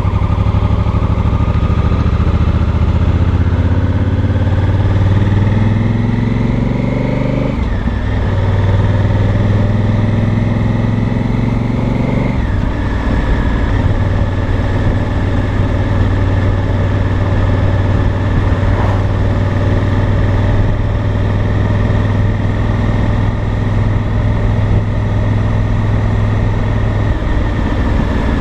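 Honda Africa Twin Adventure Sports' parallel-twin engine and exhaust under way: the revs rise for about seven seconds and drop suddenly at an upshift, rise again and drop at a second upshift about twelve seconds in, then hold steady at an easy cruise.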